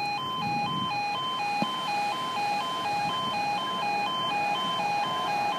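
Level crossing warning alarm sounding a steady two-tone warble, alternating between two notes about twice a second, as the crossing sequence starts for an approaching train.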